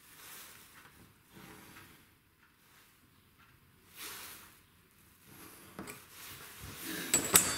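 Pencil drawn along a steel ruler on plywood blanks, marking diagonal lines in several short strokes. Near the end, a cluster of sharp clicks and knocks from the ruler, pencil and wooden pieces being handled on the bench, the loudest sounds.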